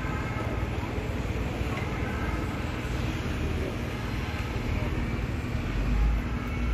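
Street ambience of passing road traffic: a steady wash of engine and tyre noise, with a deeper rumble swelling about six seconds in.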